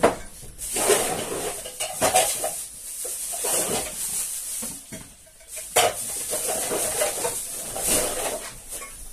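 Bowls and containers being handled, with irregular clattering and scraping and a few sharp clicks.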